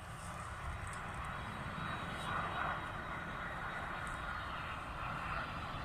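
Virgin Atlantic Boeing 747 landing: a steady jet rushing sound with a low rumble beneath, swelling slightly a couple of times.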